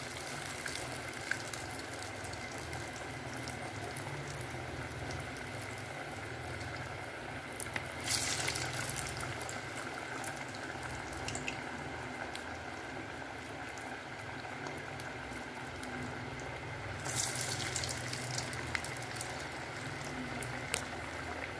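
Lentil vadais deep-frying in hot oil: a steady bubbling sizzle, with two brief louder flares of sizzle about 8 and 17 seconds in, the first as another ball of dough goes into the oil.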